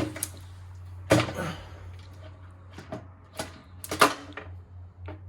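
Sharp metallic clinks and knocks of hand tools chiselling and prying at the lower crankcase of a VQ35HR V6, loudest about a second in, with a close pair around four seconds in, over a steady low hum.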